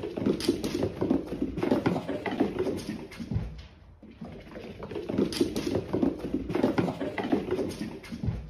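A cat's paws pattering quickly on a laminate wood floor as it runs, in two bursts of a few seconds each with a short lull about three and a half seconds in.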